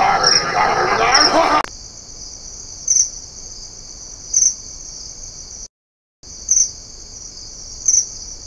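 Crickets trilling steadily at night, with one louder chirp standing out about every second and a half. For the first second and a half a murmur of low voices sits over them; the sound drops out completely for about half a second around six seconds in.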